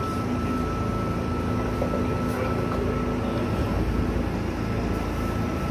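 A steady low machine rumble with a faint, constant high whine over it.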